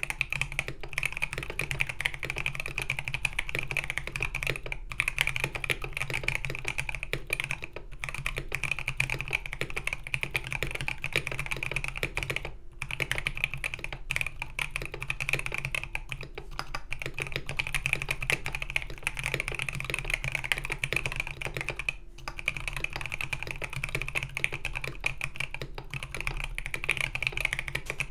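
Continuous fast typing on a KBD67 Lite gasket-mount keyboard with a polycarbonate plate, Krytox 205g0-lubed C³Equalz Kiwi tactile switches and NP PBT Crayon keycaps. Dense keystroke clacks with a few brief pauses, near 5, 8, 12 and 22 seconds in.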